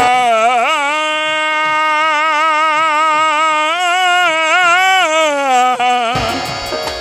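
A man's voice holding one long wordless sung note, wavering in vibrato with small ornamental turns, over soft devotional backing music. The drums come back in strongly about six seconds in, as the note ends.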